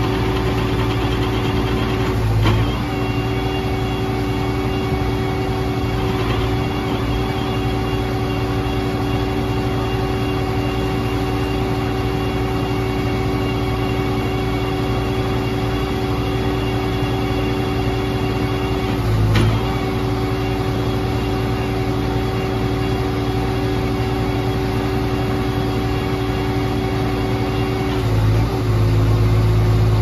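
New Holland skid steer loader's diesel engine running steadily at a fixed speed, with a steady whine. Three times, shortly after the start, just past the middle and near the end, the note briefly dips and the low rumble swells.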